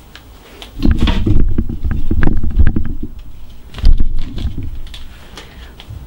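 Handling noise as the camera is picked up and carried: heavy rubbing, knocking and bumping against the microphone from about a second in until about four seconds in, then quieter.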